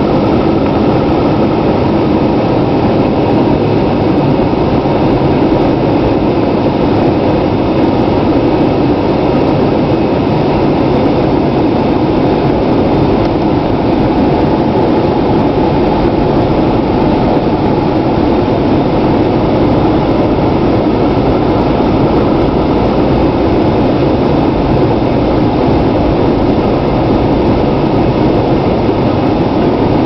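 The Cummins turbo-diesel inline-six of a 2011 Dodge Ram 3500 dually running steadily while the truck drives, heard from inside the cab, mixed with tyre noise on a snow-packed road.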